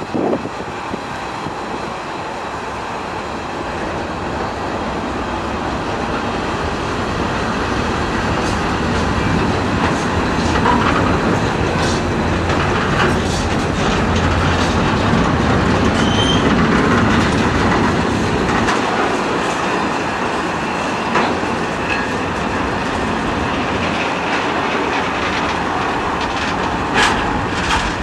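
Freight train of container and tank-container flat wagons rolling past at speed: a steady rumble of wheels on the rails that builds over the first half, with occasional sharp clicks at rail joints and a brief faint wheel squeal about halfway through.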